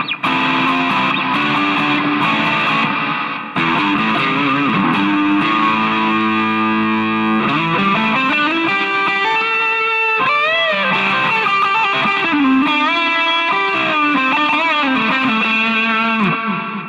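Chinese-made Ibanez Jem7V-style electric guitar on its middle single-coil pickup, played through a lightly overdriven amp: chords and single-note lines, with wavering vibrato on held notes about ten seconds in. The playing dies away near the end.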